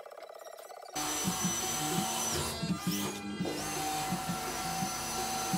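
Background music with a steady beat that cuts in abruptly about a second in, after a quieter tonal passage.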